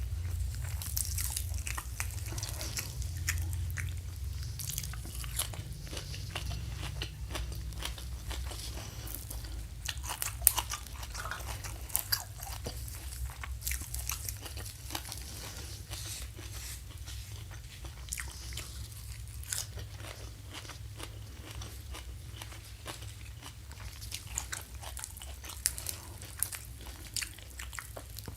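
Close-miked eating: a person biting, chewing and crunching crisp food, heard as many small crackles and clicks, with a steady low hum underneath.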